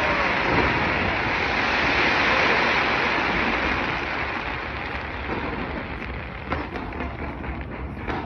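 Fireworks crackling in a dense, steady hiss that fades after about four seconds, giving way to scattered sharp pops and bangs near the end.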